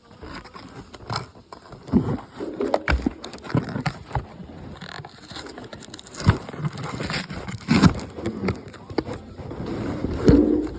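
Irregular clicks, knocks and rustles of hands handling packaging and small diecast toy cars, with a brief pitched sound near the end.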